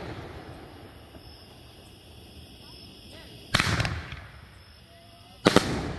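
Pyro Demon 'Firestorm' 500-gram, 9-shot firework cake firing: the echo of one shell burst fading at the start, a loud report with a rough fading tail about three and a half seconds in, and two sharp bangs a fraction of a second apart near the end.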